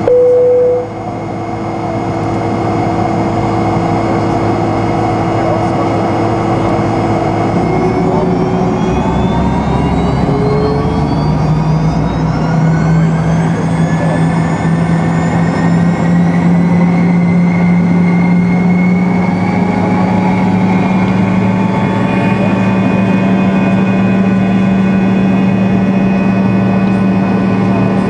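A Fokker 100's rear-mounted Rolls-Royce Tay turbofans heard from inside the cabin, spooling up to take-off thrust. A whine rises in pitch from about eight seconds in and levels off a few seconds past the middle into a steady, loud drone as the take-off roll begins.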